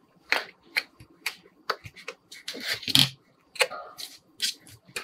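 Fingers handling a plastic tree-shaped cutter pressed into soft modelling dough: a string of short, irregular clicks, taps and rustles.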